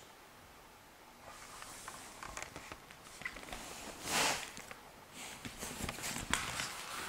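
Russian toy terrier puppy's paws tapping and scrabbling in short scattered bursts. About four seconds in comes a louder brief rustle as the puppy brushes against the camera.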